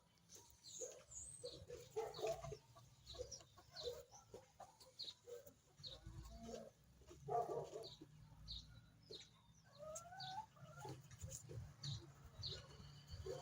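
Chickens clucking in short, repeated calls, fairly faint.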